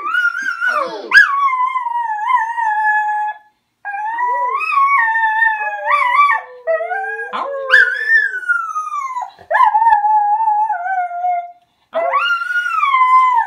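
Dogs howling: about five long howls with short breaks between them, each sliding down in pitch at its end, and two voices overlapping for a moment in the middle.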